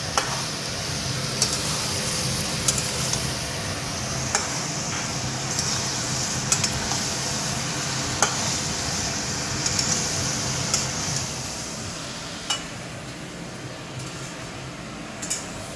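Spiced raw jackfruit and potato masala sizzling in a pan while a spatula stirs it, with sharp taps and scrapes of the spatula against the pan every second or two. The sound of kashano: the masala being fried down with the jackfruit until it is cooked soft.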